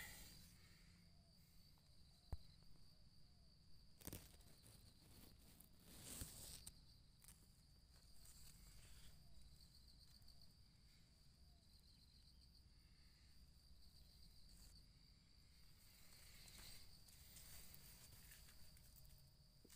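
Very faint outdoor ambience: a steady high insect trill, with a few brief rustles and footsteps in dry leaves.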